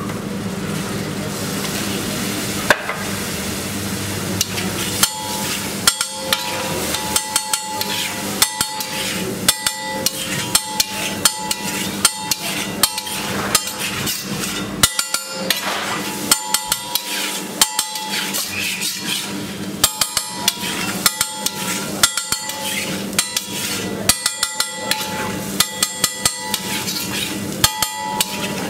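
Water poured onto a hot flat iron griddle sizzles for the first few seconds. Then a steel spatula chops and scrapes the egg mixture on the griddle in fast, irregular clanging strikes, several a second, each with a metallic ring.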